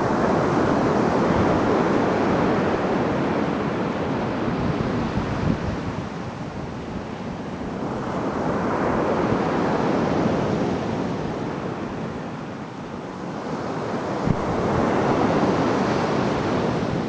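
Surf breaking on a beach: a steady rushing wash that swells and fades slowly, cresting three times, with some wind on the microphone.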